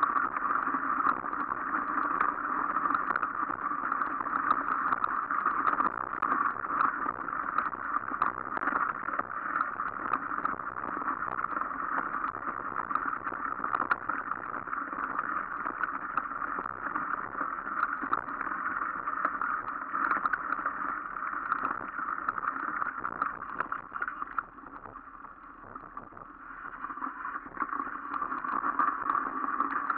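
Mountain bike riding over a snowy, icy forest trail: a steady rolling rumble from the tyres and frame with small rattles and clicks. It goes quieter for about two seconds near the end, then picks up again.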